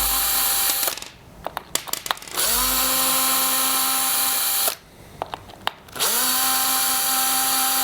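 Power drill/driver with a 3 mm hex bit backing out the screws that hold a split wheel rim together. The motor makes three short runs: one stops about a second in, one runs from about two and a half to nearly five seconds, and one starts around six seconds in. Each run rises quickly to a steady whine, and there are a few light clicks in the pauses between runs.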